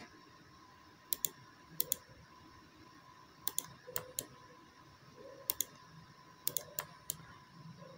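Sharp clicks of a computer mouse and keyboard, mostly in quick pairs, about eight times, over a faint steady hum.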